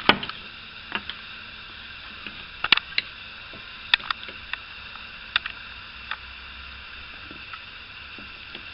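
Scattered sharp clicks and taps, irregularly spaced, from tools being handled against the car door's metal while reaching for a hidden window-glass clamp bolt.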